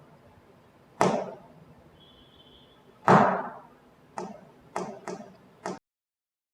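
A series of six sharp knocks with a short room echo, irregularly spaced, the second one the loudest; the last three are quicker and lighter, and the sound cuts off abruptly near the end.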